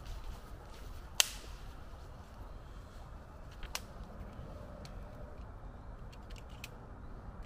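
A few sharp cracks or snaps over a steady low rumble: the loudest about a second in, another near four seconds, and several faint ticks later on.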